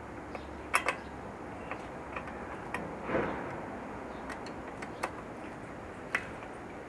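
Scattered small metallic clicks and taps of hand tools and parts as a disc brake rotor is unbolted from a trike wheel hub, with a brief scraping rustle about three seconds in.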